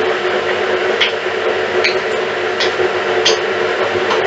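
Pasta being stirred in a frying pan with two spatulas: about five short clicks of the spatulas against the pan, roughly one a second, over a steady hiss and hum.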